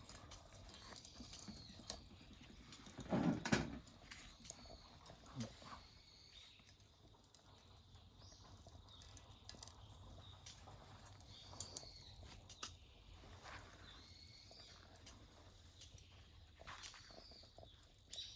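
Wood fire burning in a portable rocket stove: a faint low rumble of the draft with scattered crackles and small pops. One louder brief thump about three seconds in.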